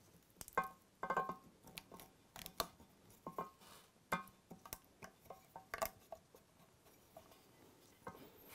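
Light, irregular clicks and taps of a plastic sink waste and its rubber washer handled against a ceramic basin while the washer is seated on the waste thread, mostly in the first six seconds.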